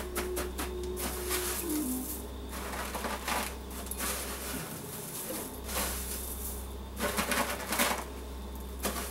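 Crushed cornflakes crunching and rustling in a metal tray as a fish filet is pressed and turned in them by hand, in irregular bursts that are loudest near the end.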